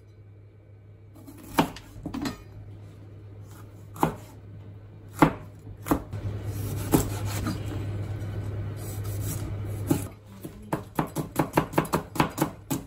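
Chef's knife chopping on a plastic cutting board, slicing a yellow bell pepper with separate, spaced-out strikes. Near the end it speeds up into a quick run of chops as an onion is sliced. A low steady hum runs underneath.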